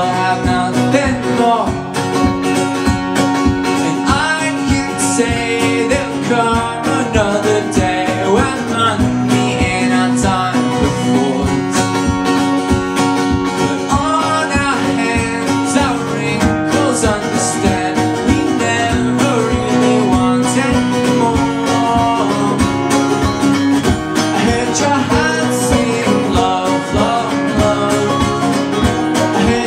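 Live acoustic band: a man singing over a steadily strummed acoustic guitar, with banjo.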